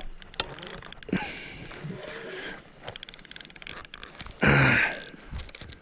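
Spinning reel giving a high-pitched, buzzing whir in two stretches of about a second each as line is cranked in against a fish on a bent rod. A short louder rushing noise about four and a half seconds in.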